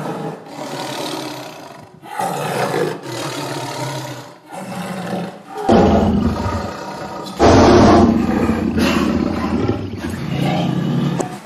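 Tigers roaring, a string of long, rough roars with short breaks between them; the loudest come about six and eight seconds in.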